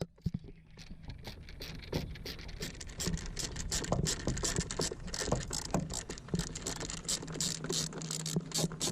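Hand tools working at the screws of a car's A/C blower motor: a run of quick, irregular clicks and scrapes, coming faster after a couple of seconds, over a steady low hum.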